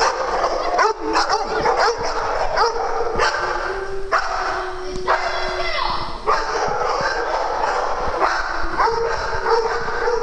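A pack of dogs barking and yipping together in a steady, overlapping din, with one longer drawn-out whine about four seconds in.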